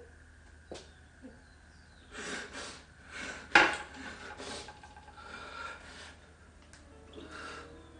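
A few rasping scrapes, then one sharp knock about three and a half seconds in as a tobacco pipe is put down on a wooden table; softer rasps follow.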